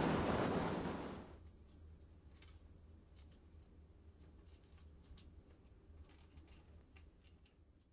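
Wind buffeting the microphone over a rushing sea noise on a ship's deck, dying away about a second in. What remains is a quiet low hum with scattered faint clicks.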